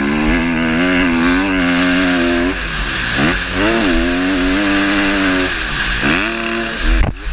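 Motocross bike engine revving hard along a dirt track, its pitch holding high, then dropping and climbing back twice, about three and six seconds in, as the throttle is shut and reopened. It cuts off abruptly just before the end.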